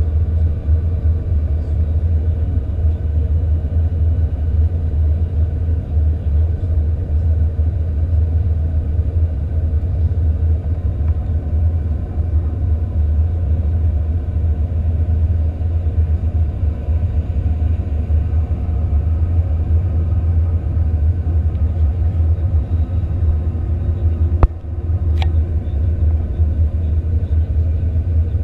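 Cabin noise of an Airbus A310-300 on its approach, heard inside the cabin beside the wing engine: a steady deep rumble of the jet engines and airflow. A single sharp knock sounds near the end.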